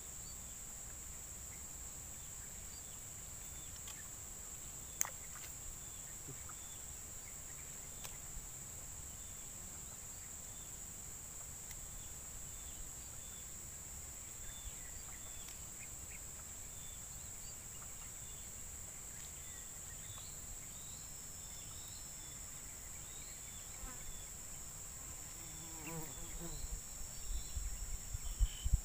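Insects in the swamp vegetation keep up a steady high-pitched drone, with small repeated chirps above a faint background. A sharp click comes about five seconds in, and a few low bumps come near the end.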